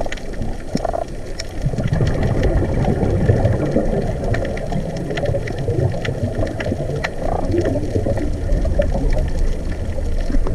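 Underwater sound picked up by a camera in its housing: a low, muffled bubbling rumble, heavier from about two seconds in, with scattered sharp clicks and crackles.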